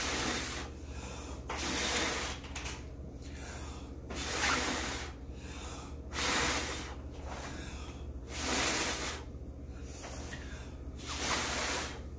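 A person blowing hard through pursed lips, six long puffs about two seconds apart, each lasting roughly a second. The blowing pushes wet acrylic pour paint outward across a canvas in a Dutch pour.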